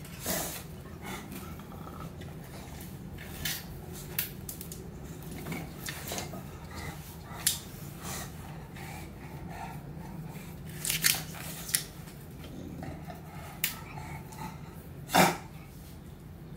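English bulldog puppy snuffling, licking and mouthing at a person's lap and hand: irregular short wet clicks, scrapes and snorts, the loudest about fifteen seconds in, over a steady low hum.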